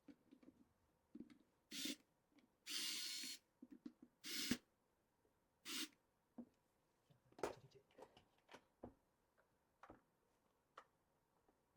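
Light clicks and taps of small metal and plastic parts being handled on an electric pruning shear while its blade is taken off, with four short hissing scrapes in the first six seconds.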